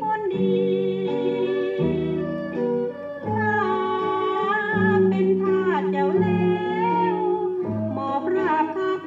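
A Thai popular song played from a vinyl LP on a turntable: a woman singing a wavering, drawn-out melody over instrumental accompaniment.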